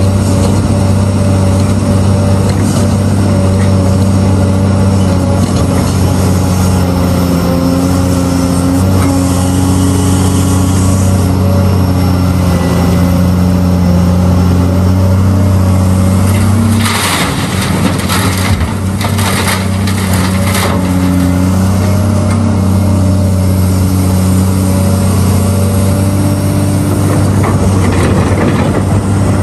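Diesel engine of a large Caterpillar 385C hydraulic excavator running steadily under working load, a deep even drone. About two-thirds of the way through comes a run of sharp knocks and clatter.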